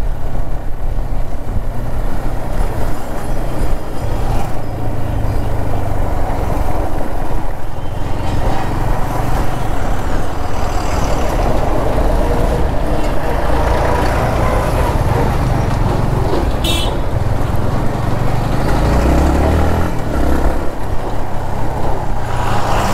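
Motorcycle riding at low road speed in traffic: steady engine and wind noise on the rider's camera mic, with a brief high-pitched sound about two-thirds of the way through.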